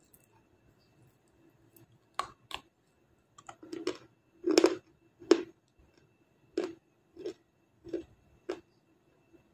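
Close-up chewing of hard, dry Black Star edible clay: a string of sharp crunches at an uneven pace, loudest around the middle.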